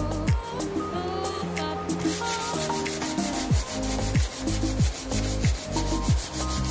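Hand sanding of cured fibreglass body filler (Bondo Glass) with an 80-grit sanding block, a rasping rub, under background music with a steady deep beat.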